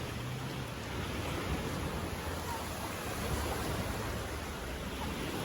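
Steady wash of sea surf on the shore.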